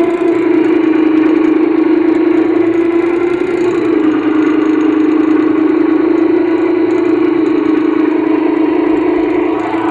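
Homemade electric boat motor running steadily under power, a constant whine whose pitch dips slightly about four seconds in.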